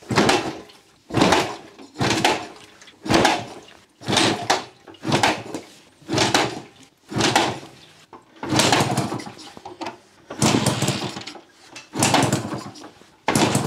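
Yamaha FS1 moped's 50cc two-stroke single being cranked over again and again without starting, about a dozen strokes roughly one a second. It fails to catch: the spark plug comes out very wet and the spark is weak, as the owner finds.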